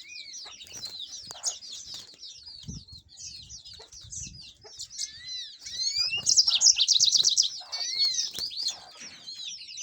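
A flock of domestic canaries chirping and singing over one another in a cage. About two-thirds of the way through, one bird sings a loud, fast trill of about eight notes a second, and there are a few soft low thumps.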